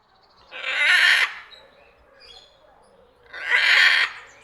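Parrot giving two loud, harsh screeching calls about three seconds apart, with fainter calls between.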